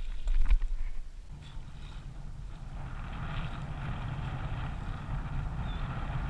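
Water rushing along a kayak's hull as the kayak is towed through the water by a hooked tarpon, with wind buffeting the microphone. A few knocks in the first second, then a steady rush that grows stronger about halfway through.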